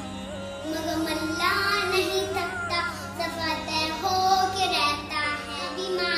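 A young boy singing a naat, a devotional poem, solo in a child's voice, with a steady low hum underneath.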